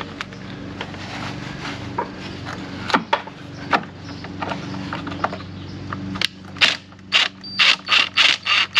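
Hand-tool work: scattered clicks and knocks over a low steady hum. From about six seconds in comes a fast run of ratcheting strokes, roughly three a second.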